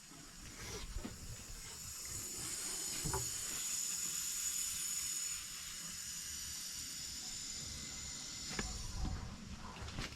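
Water hissing through a valve and supply pipes as the house's water is turned back on, building in the first second and holding steady, a little quieter after about five seconds, with a couple of faint knocks.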